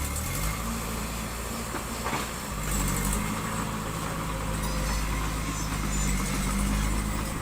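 Diesel engine of heavy construction machinery running. Its speed picks up in the first half second, then it runs steady, with a single knock about two seconds in.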